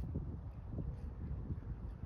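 Footsteps crunching through snow in an irregular series of soft steps, with wind rumbling on the microphone.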